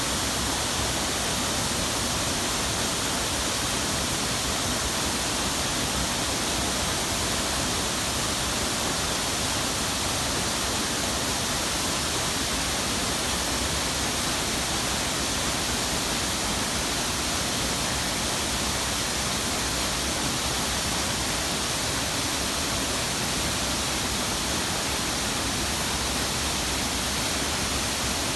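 Artificial waterfall: water falling in a steady, unbroken rush.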